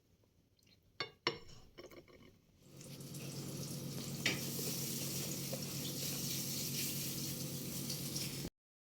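Two sharp clinks of kitchenware about a second in, then a steady kitchen hiss with a low hum under it, starting about three seconds in and cutting off abruptly near the end.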